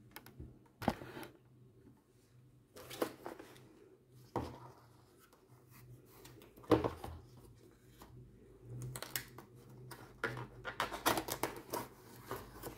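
Cardboard box being handled and opened by hand: scattered taps and scrapes, then a run of quick scratching and clicking about nine seconds in as the taped seam is worked open.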